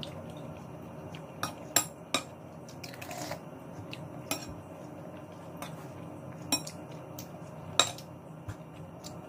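Cutlery clinking against dishes at a meal: a handful of sharp, irregularly spaced clinks, the loudest about two seconds in and near the end.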